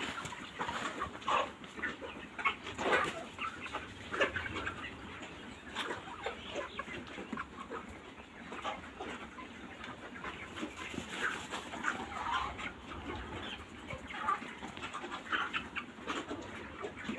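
A flock of broiler chickens in a poultry shed, many birds making short, overlapping clucks and calls.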